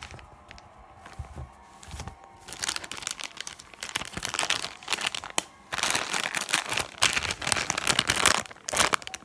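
Crinkling and rustling of a clear plastic squishy packaging bag being handled, starting about two and a half seconds in and loudest in the second half, after a few soft handling knocks.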